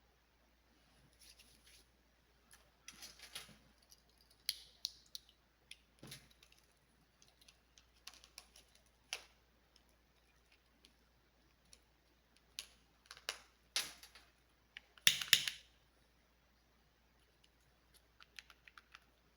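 Scattered small clicks and short rustling handling noises, irregular, with the loudest cluster about fifteen seconds in.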